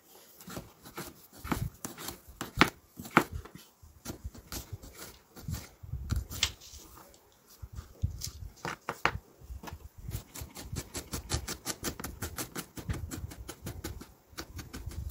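Kitchen knife chopping garlic on a plastic cutting board: sharp knocks of the blade striking the board, scattered and irregular at first, then a rapid, even run of about six chops a second from about ten seconds in as the garlic is minced.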